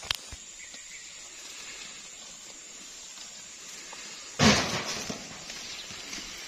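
Rustling of people pushing through dense undergrowth, with a sharp click at the start and a loud sudden thump and rustle about four and a half seconds in that fades over about a second.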